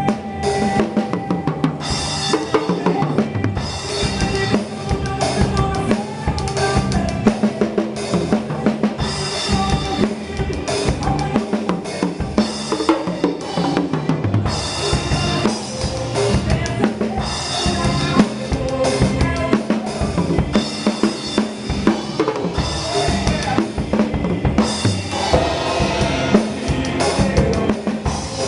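Instrumental passage of forró gospel music with the drum kit to the fore: kick drum, snare and rimshots over sustained pitched instruments, with no singing.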